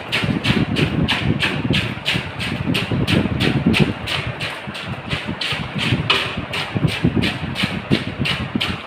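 Wet scraping and squelching of chopped tomatoes being stirred with a paddle in a large aluminium pot, in quick regular strokes about three a second, over a low rumble.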